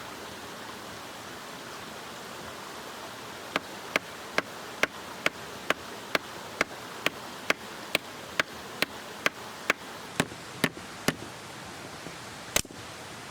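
Steady rush of a mountain stream, and about three and a half seconds in a run of sharp, evenly spaced knocks starts, a little over two a second, about eighteen in all, stopping about eleven seconds in, with one more knock near the end.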